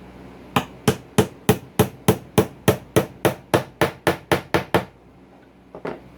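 A hammer struck about sixteen times in a fast, even rhythm, roughly three to four blows a second and speeding up slightly, then two lighter knocks near the end.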